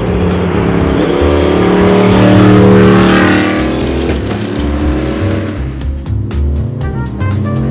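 The 2020 Cadillac DPi-V.R. prototype's V8 racing engine passes at speed, loudest and dropping in pitch about three seconds in. Music with a steady beat plays throughout and is the main sound in the last couple of seconds.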